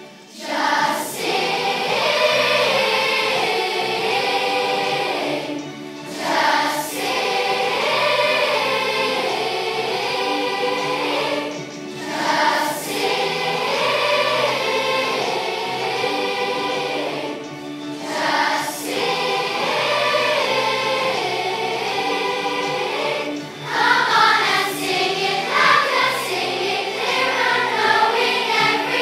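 Large children's choir of about 250 voices singing together. The phrases are broken by short breaths about every six seconds.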